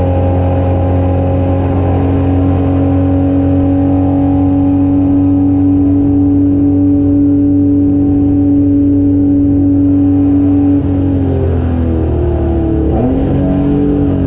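Holden HQ race car's 202 straight-six engine held at steady high revs at full throttle, heard from inside the car. About eleven seconds in the note drops and wavers as the engine comes off the throttle and changes down, then settles again near the end.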